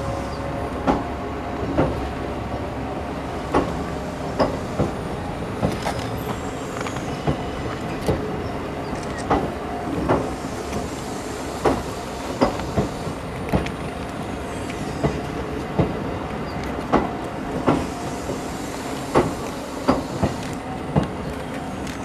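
N700 series Shinkansen cars rolling slowly across a level crossing, the wheels clacking sharply over the rail joints about once a second over a steady rumble.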